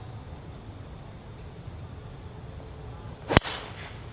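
A golf driver striking a ball off the tee: one sharp crack about three and a half seconds in. Steady high-pitched insect chirring runs underneath.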